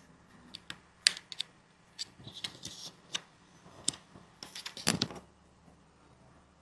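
Small tools and phone parts clicking and tapping on a work surface during a phone repair: irregular sharp ticks, with a denser, louder cluster about five seconds in.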